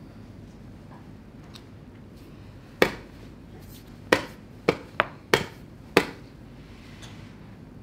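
Blitz chess moves: wooden chess pieces set down sharply on the board and the chess clock pressed, six quick knocks in all, the last five in a fast run between about four and six seconds in.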